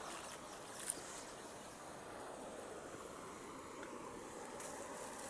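River water flowing steadily, with a faint tap about a second in.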